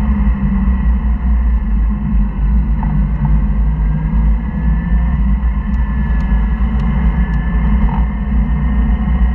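Porsche flat-six engine running at track speed, heard from inside the cabin as a loud, steady low drone with road noise, its pitch drifting a little midway.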